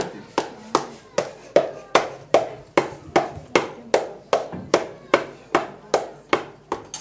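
Steady, evenly spaced knocking, about two and a half strikes a second, each strike hard-edged with a short ringing tail, like a hammer working at a bench.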